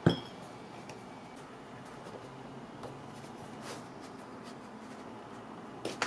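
Awl punching holes in thick leather: a sharp clink with a brief ring at the start, a few faint taps, and another click near the end.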